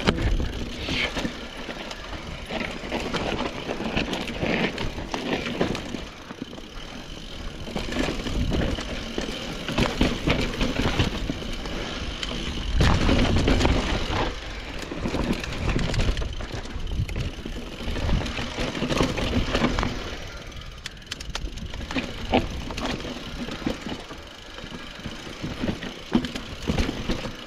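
Mountain bike riding down a dirt trail: an uneven rush of tyre noise with frequent knocks and rattles as the bike goes over bumps.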